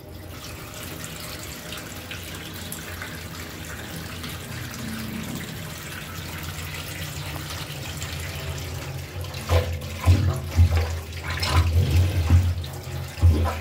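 Tap water pouring into a stainless steel kitchen sink. From about two-thirds of the way in, a rubber cup plunger is pumped in the water over the drain, sloshing in repeated strokes about two a second.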